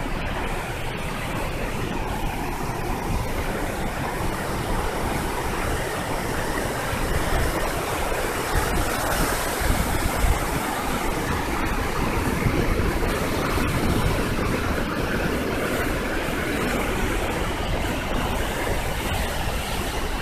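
River rapids and a waterfall rushing: a steady, dense wash of water noise that swells slightly through the middle.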